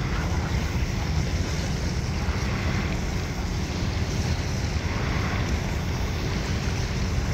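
Wind buffeting the microphone with a steady low rumble, over waves washing on a lakeshore.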